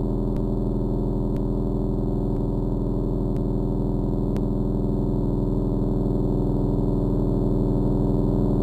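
A sustained ambient drone: a steady chord of many low, held tones, gong-like and synthetic. Faint ticks come about once a second during the first half.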